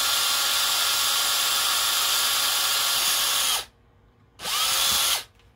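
Cordless drill with a 1/16-inch bit running steadily as it bores a small hole through a drone's plastic cover; it stops suddenly about three and a half seconds in, then runs again briefly for under a second and winds down.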